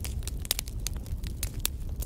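Wood fire crackling in a fireplace: many sharp pops and snaps, several a second, over a steady low rumble of the burning logs.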